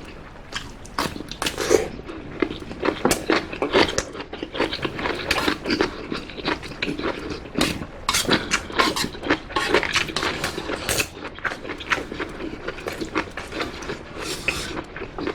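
Close-miked eating sounds: dense, rapid wet clicks and crackles of chewing that carry on without a break.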